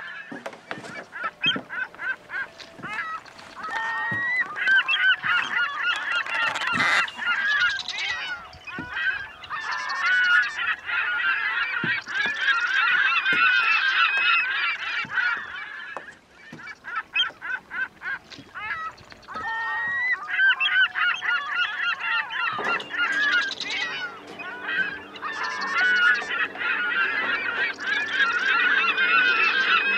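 A flock of gulls calling continuously, many cries and squawks overlapping, with a short lull about halfway through. A steady low hum joins about three-quarters of the way in, under the calls.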